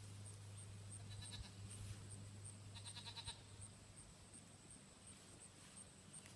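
A goat kid bleating faintly twice, a short bleat about a second in and a longer, quavering one about three seconds in, over a steady low hum.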